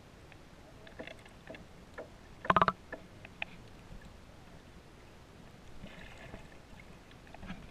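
Muffled underwater sound heard through a camera's waterproof housing: a low hiss with scattered faint clicks, and a short, loud, rattling knock about two and a half seconds in.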